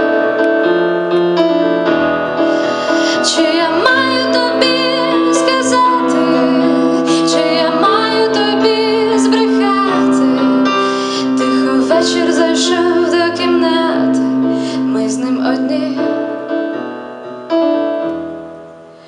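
A woman singing to her own keyboard accompaniment in a piano sound. Near the end the playing thins out and a last chord dies away.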